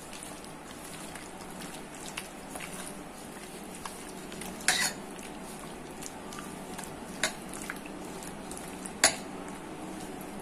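Hand mixing needle fish in a thick masala batter in a stainless steel bowl, with three sharp metallic clinks against the bowl, the last the loudest.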